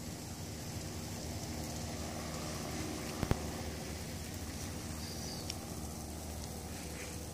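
Steady low background hum with faint even tones, broken by two sharp clicks a little over three seconds in.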